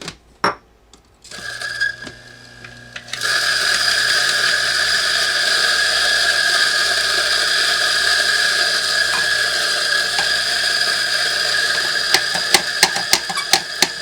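Electric burr coffee grinder, the built-in grinder of a Breville Barista Express espresso machine, switching on about three seconds in and running steadily as it grinds coffee beans at a coarser setting. A few clicks come before it starts, and a few sharp clicks near the end.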